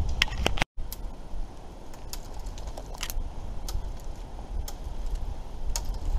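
Wind buffeting the microphone in a low rumble, with irregular sharp clicks and taps scattered through it. The sound drops out completely for a split second under a second in.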